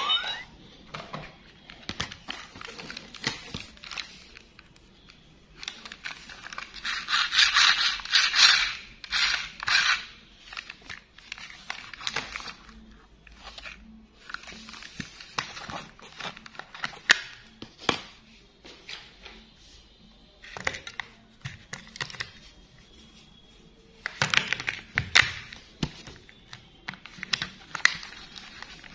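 Plastic toy train being handled with gloved hands: scattered clicks, light knocks and scrapes of hard plastic parts, with two longer stretches of rustling and crinkling, one about six seconds in and another near the end.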